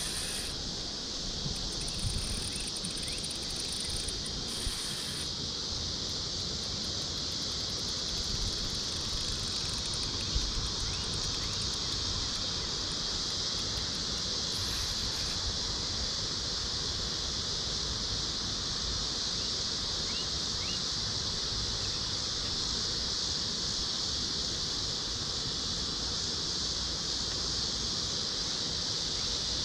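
Steady, high-pitched chorus of insects: a continuous, even buzzing drone.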